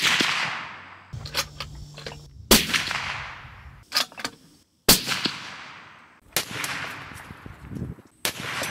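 Suppressed .300 Winchester Magnum bolt-action rifle firing several sharp shots, each trailing off in a long echo. The loudest shot is at the very start, with others about two and a half and five seconds in and fainter reports after.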